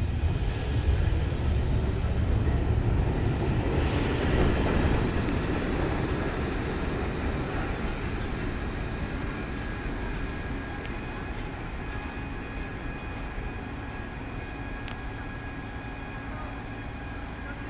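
R62A subway train pulling out of the station, its rumble loudest in the first few seconds as the cars pass, then fading steadily as it runs off down the track. A faint steady high hum stays underneath.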